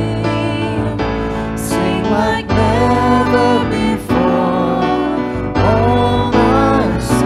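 Live church worship music: keyboard chords with singers holding long notes of a slow worship song.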